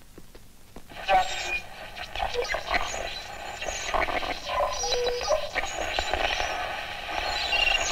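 An old tabletop valve radio switched on and tuned across the band: hissing static with short whistles and snatches of broadcasts, starting about a second in.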